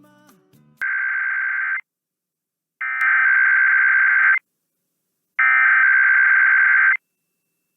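Emergency Alert System SAME header for a Required Weekly Test: three bursts of digital data tones, the first about a second long and the next two about a second and a half, with silence between them.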